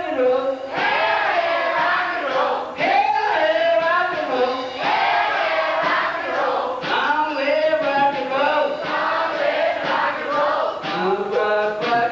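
A group of voices singing together, loud and unaccompanied, with no clear drum beat.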